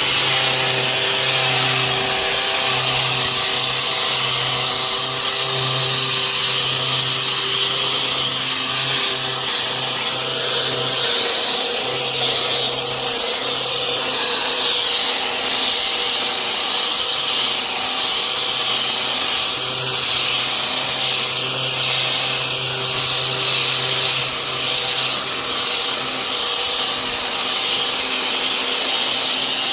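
Electric sander running steadily with its sandpaper against the work: an even motor hum under a hiss of abrasion.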